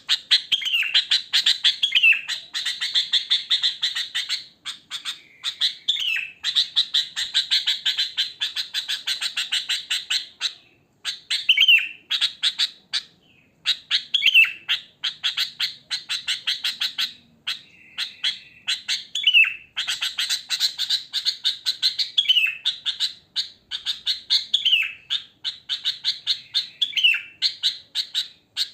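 Sooty-headed bulbul calling: long runs of rapid chattering notes, broken every couple of seconds by a short falling whistle.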